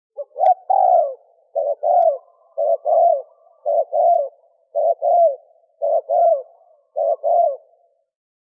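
Spotted dove cooing in the 'thổ kim' call style: a short opening note, then about seven paired coos at roughly one pair a second, each note dropping in pitch.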